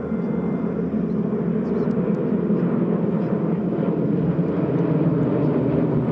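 Radial engines of a formation of North American T-6/SNJ Texan trainers (Pratt & Whitney R-1340 Wasp) running steadily as the planes pass overhead, slowly growing louder.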